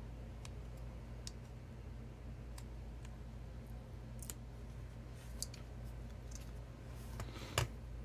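Faint, scattered small clicks and ticks from a precision screwdriver working on a tablet's circuit board and plastic frame, with one louder click near the end, over a low steady hum.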